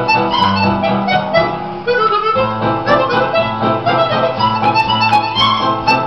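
Harmonica playing a melody over a musical accompaniment with a steady low bass line.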